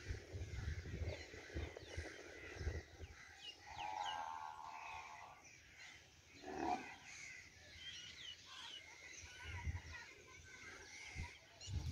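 Rural outdoor ambience: small birds chirping, with bursts of low rumbling. A drawn-out animal call comes about four seconds in, and a shorter, falling call about six and a half seconds in.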